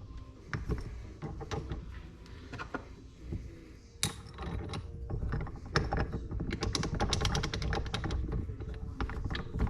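Metal hand tools and engine parts clicking and clinking during hand work on a motorcycle engine. Scattered clicks, a sharp knock about four seconds in, then a dense run of fast clicks.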